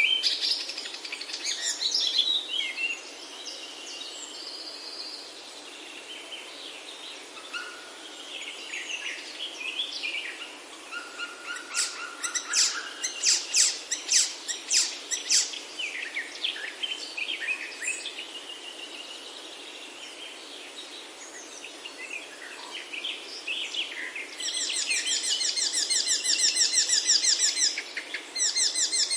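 Several songbirds singing and calling at once, with clusters of sharp chirps and, near the end, a long fast trill of rapidly repeated notes, over a steady soft background hiss.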